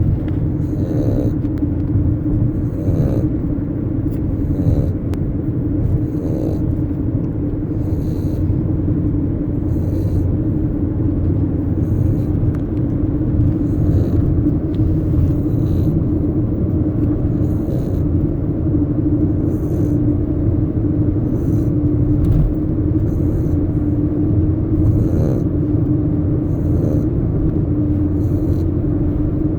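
Small dog snoring loudly in a steady rhythm, with a breath about every two seconds over a continuous low rumble.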